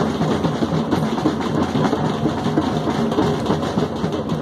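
Several drums, among them a large bass drum on a cart, played continuously in a steady beat of many quick strokes.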